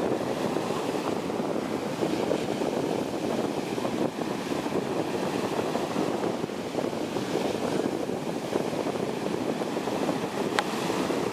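Surf breaking and washing up a sandy beach: a steady rush of waves and foam.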